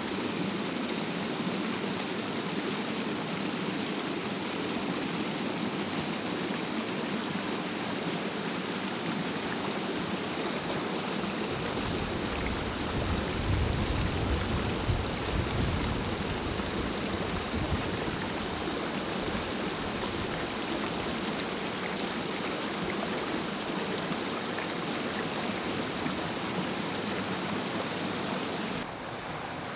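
Mountain stream rushing over rocks: a steady water noise, with a deeper rumble swelling for several seconds around the middle.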